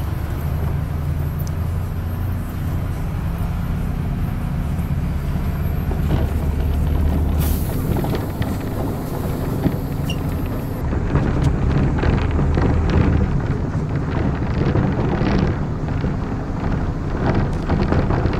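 A city bus heard from inside the passenger cabin while it drives: a steady low engine drone that shifts in pitch a couple of times, with cabin rattles and road noise over it.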